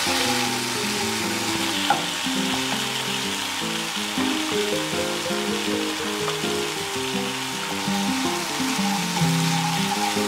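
Onion, sausage and chili spice paste sizzling in a frying pan while a wooden spatula stirs them, with a sharp tap about two seconds in. Soft background music plays underneath.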